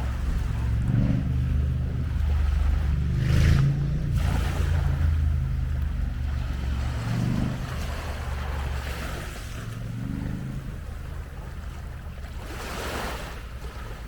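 Waves washing onto the beach, swelling and falling several times, with wind rumbling on the microphone.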